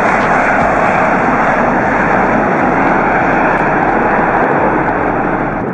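Boeing 747-8 jetliner taking off, its four GEnx turbofan engines at takeoff thrust: a loud, steady jet rush with no change in pitch.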